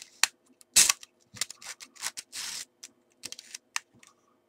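1984 Kiev-4 rangefinder camera being cocked and fired over and over: a series of sharp mechanical clicks and short rasps from its winding and shutter mechanism. The shutter curtains are working as they should at the different speeds.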